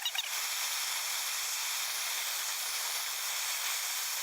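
Handheld blowtorch flame hissing steadily as it plays on a smart padlock, melting its plastic front and metal body.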